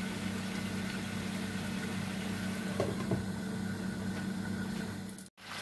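Steady low mechanical hum from a kitchen appliance motor, with a couple of faint clinks about three seconds in. The sound drops out for an instant near the end.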